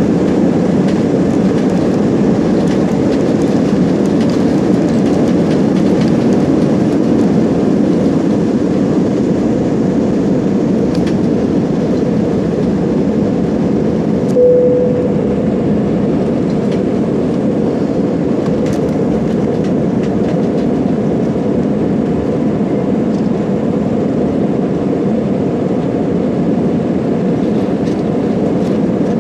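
Steady rumble of jet airliner cabin noise in flight, engine and airflow noise holding an even level. A short single tone sounds once about halfway through.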